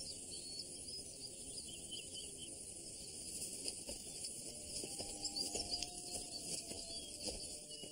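Crickets chirping steadily in a night-time insect chorus, a thin high texture of many short chirps. About five seconds in, a few faint held low tones come in underneath.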